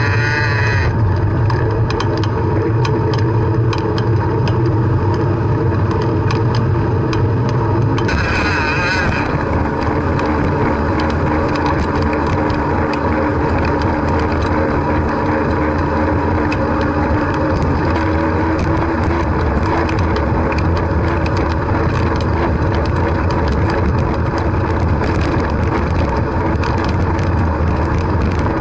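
Wind rushing over the microphone of a camera on a moving bicycle, a loud steady rumble, with frequent small rattling clicks from the bike over the pavement.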